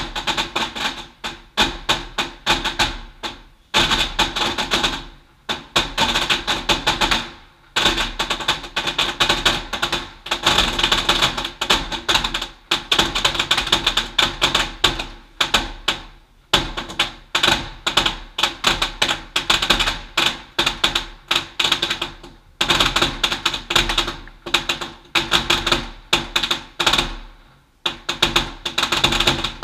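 A duizendknaller, a long string of firecrackers, going off in a rapid, continuous crackle of sharp bangs, with several brief breaks of about half a second.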